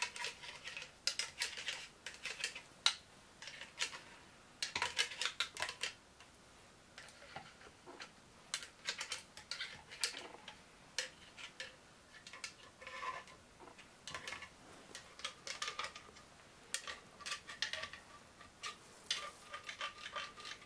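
Hand pump oil can clicking and squirting engine oil onto the gearbox shafts and gears of an open Yamaha single-cylinder crankcase, its metal spout clinking against the parts. Quiet irregular clusters of clicks, with a few short squeaky tones in the second half.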